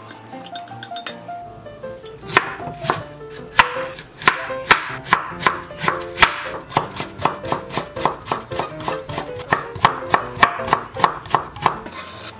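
Chef's knife cutting a raw carrot on a bamboo cutting board. Sharp chops begin about two seconds in at about two a second as the carrot is sliced into planks, then quicken to a steady run of about three a second as the slices are julienned into matchsticks.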